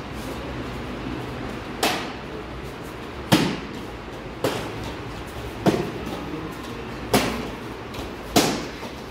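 Kicks landing on a hand-held kicking paddle: six sharp slaps, about one every one to one and a half seconds, each echoing briefly in a large hall.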